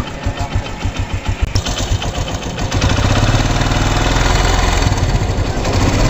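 TVS Metro Plus motorcycle's air-cooled single-cylinder engine idling with an even pulsing beat, then speeding up to a faster, steadier run about three seconds in. It carries the timing chain noise that the mechanic puts down to a stretched timing chain.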